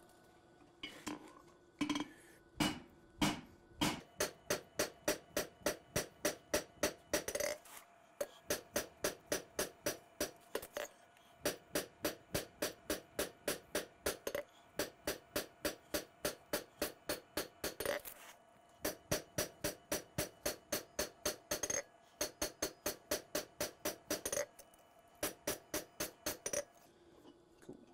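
Hand hammer striking a hot 52100 steel Bowie knife blade on an anvil to forge the bevels in, about three to four blows a second in runs broken by short pauses. The anvil rings with each blow.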